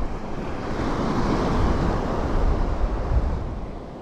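A sea wave washing onto the shore: a rush of noise that builds about a second in and fades near the end, with wind rumbling on the microphone underneath.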